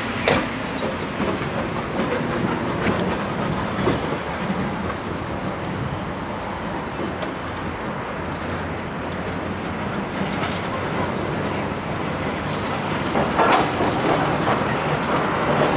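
Tram rolling along the track close by: a steady rumble of steel wheels on rails, broken by occasional sharp clacks, with a louder burst of clacking about 13 seconds in.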